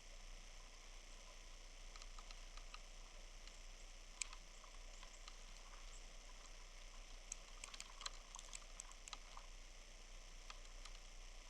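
Faint steady hiss with a low hum, broken by scattered light ticks and clicks, the loudest just after four seconds in and a small cluster around eight seconds.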